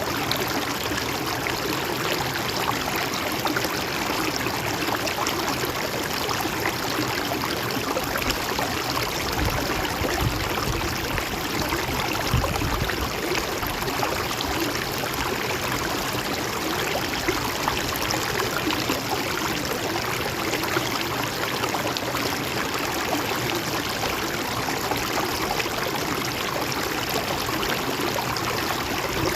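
Mountain stream running over rocks, a steady rush of water with small splashes throughout.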